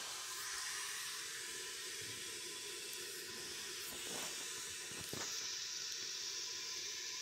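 A steady, even hiss, with a faint click about four seconds in and another about five seconds in.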